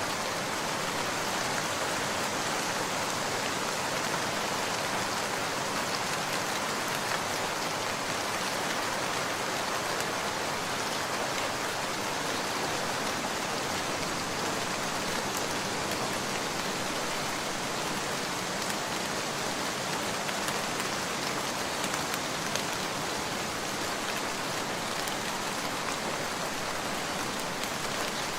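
Steady heavy rain falling, an even hiss with scattered drops pattering on surfaces.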